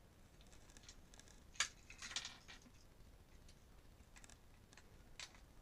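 Small plastic toy accessories handled by hand: a few faint clicks and light rattles, the sharpest about a second and a half in.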